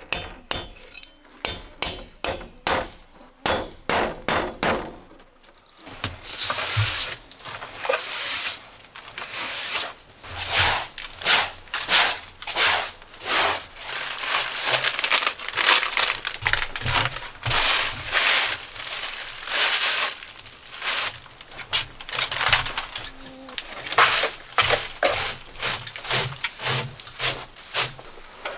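Sharp knocks, about two or three a second, as the back of a hatchet taps a wooden strip onto a log window frame. After about six seconds, plastic packets crinkle as they are handled, and later come repeated brushing strokes of a broom on a wooden plank floor.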